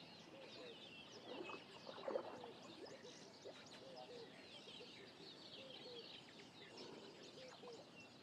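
Faint natural bush ambience: many small birds chirping in quick short notes, with scattered lower short calls, one a little louder about two seconds in.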